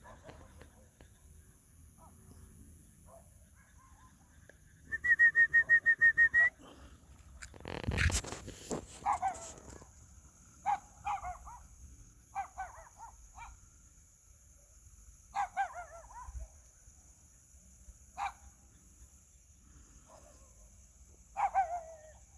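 Short animal calls, one at a time with gaps of a second or more, each dropping slightly in pitch. Before them comes a loud, rapidly pulsed high tone lasting about a second and a half, followed by a single sharp thump.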